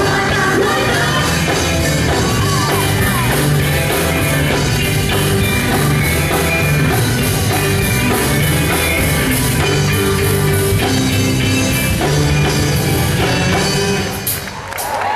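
Live gospel group singing with a full band and drum kit, with shouted lines over the music; the sound drops briefly about a second before the end.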